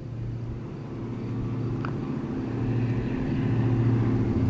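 Diesel locomotives of an approaching freight train, a steady low engine drone that grows louder.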